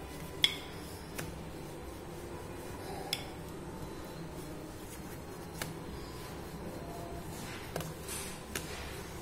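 Wooden rolling pin working stuffed dough on a floured glass plate: scattered sharp clicks of wood against glass, the sharpest about half a second in. Near the end there is a soft rubbing as fingers press the dough.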